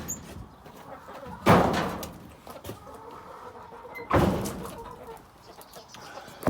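Hens clucking softly, broken by two loud sudden knocks, about a second and a half in and again about four seconds in.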